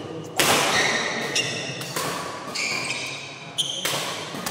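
Badminton rally: rackets striking the shuttlecock with several sharp cracks, the loudest a jump smash about half a second in. Sneakers squeak briefly on the court floor between shots.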